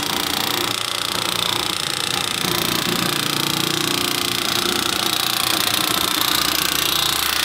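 Makita cordless sheet metal nibbler cutting through a sheet of metal, its punch chattering rapidly in one steady, unbroken run that stops near the end.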